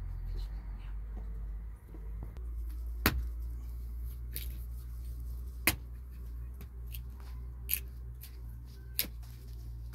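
Hands handling and stretching thin dough, soft handling noise with four sharp clicks spread through it, over a steady low rumble.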